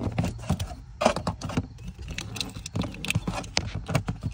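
Wiring and a small plastic module being pushed and tucked behind plastic under-dash trim by hand: an irregular run of rustles, scrapes and sharp plastic clicks.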